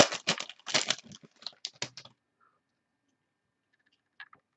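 Trading cards being handled and flipped through by hand: a quick run of crisp clicks and rustles for about two seconds, then a pause, then a few more clicks near the end.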